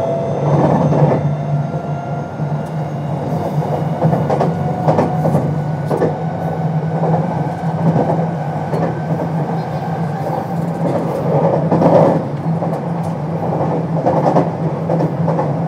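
Onboard running sound of a JR West 521 series electric train with a Toshiba IGBT-VVVF inverter, running at steady speed: a constant low hum with faint steady tones above it, and scattered knocks from the wheels over the track.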